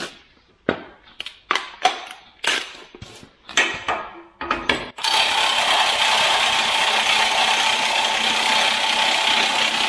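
Metal tools knocking and clattering as they are handled and set against the bale handler's tine fork. About five seconds in, a cordless impact wrench starts on the nut of the worn tine collet and runs continuously and loudly.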